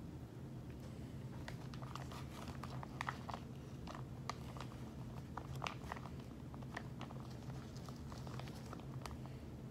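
Scattered small crinkles and sticky clicks of hands handling raw bacon slices and the plastic bag they are kept in, over a steady low hum.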